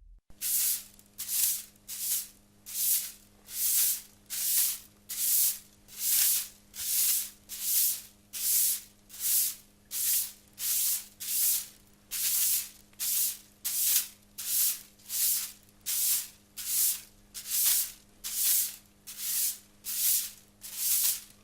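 Hard-bristled broom sweeping rough concrete in steady, even strokes, about one every three-quarters of a second, each a bright scratchy swish.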